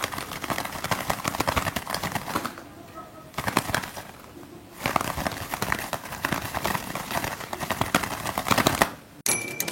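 Pigeon wing flapping made as foley by flapping a leather glove: runs of quick, fluttering flaps, broken by two short lulls about three and four and a half seconds in.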